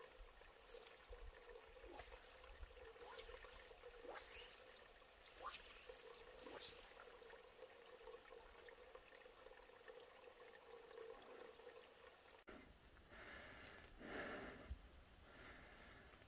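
Near silence: faint outdoor background with a steady low hum and a few faint ticks. The background changes abruptly about three-quarters of the way through to a faint, uneven hiss.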